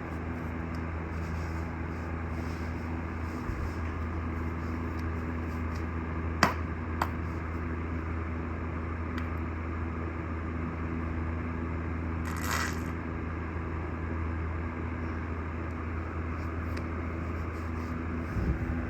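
Steady low mechanical hum, like a motor or fan running, with two sharp clicks about a third of the way in and a brief hiss about two thirds in.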